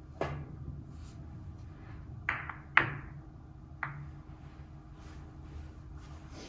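Carom billiard balls in a four-ball game: the cue tip strikes the cue ball, then about two seconds later come three sharp clacks as the balls hit one another and the cushions. The loudest clack is just under three seconds in.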